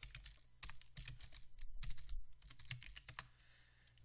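Computer keyboard typing: a quick run of keystrokes entering a line of text, stopping about three seconds in.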